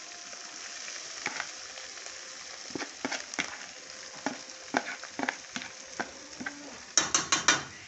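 Shredded chicken being dropped into a pot of garlic and colorau frying in pork lard, sizzling steadily with scattered soft taps as it lands. About seven seconds in come four quick, sharp taps.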